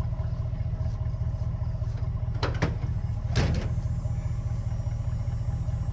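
Ram pickup truck idling steadily, with two clunks from the tailgate being unlatched and dropped open, about two and a half and three and a half seconds in.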